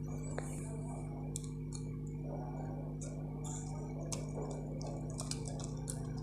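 Light scattered clicks and taps of hands handling a wooden RC truck chassis, over a steady low hum.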